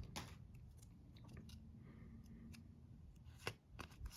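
Faint handling of trading cards: a few soft clicks and flicks as cards are slid and shuffled, the clearest about three and a half seconds in and again near the end.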